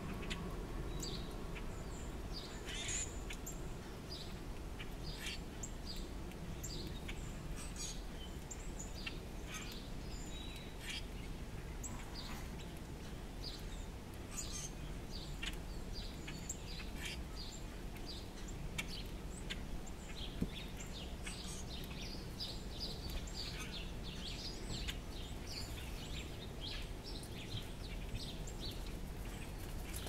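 Small birds chirping: many short, high calls scattered throughout, more of them near the end, over a steady low background rumble.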